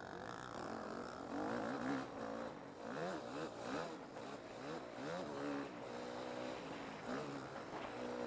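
Yamaha motocross bike's engine heard from on board while racing. The revs climb and drop again and again as the throttle is opened and closed.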